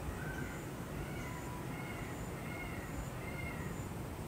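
A run of short, high-pitched animal calls, a few a second, over steady outdoor background noise.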